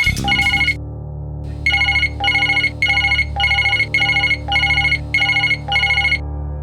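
Electronic telephone-ring ringtone: a bright, trilling ring repeated about twice a second over a steady low hum. It starts after a short tail of another tune and stops a little before the end.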